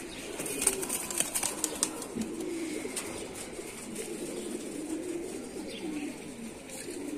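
Tippler pigeons cooing: soft, low, warbling coos, with a few light clicks in the first two seconds.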